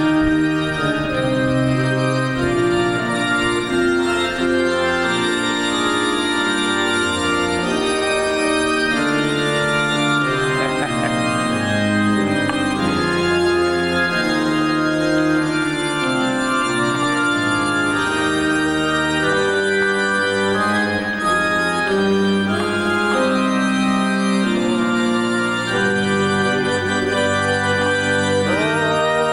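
Organ music playing a slow run of sustained chords.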